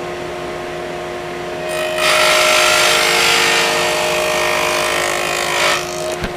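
Sears Craftsman contractor table saw with a stacked dado blade, its motor running with a steady hum, then cutting a groove in a 3/4 inch wood test piece from about two seconds in until near the end. The cut adds a loud, even rushing noise over the hum.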